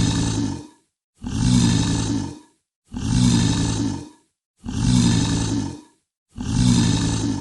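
Dinosaur breath sound effect: a deep, growling breath with a hiss over it, each one lasting just over a second. The same breath repeats five times, about every second and a half to two seconds, with silence in between.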